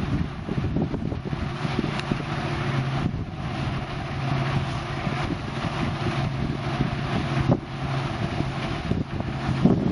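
Claas Medion 340 combine harvester running steadily under load as it cuts wheat, a constant low engine hum with the threshing machinery's noise over it. Wind buffets the microphone throughout, with a couple of louder bumps near the end.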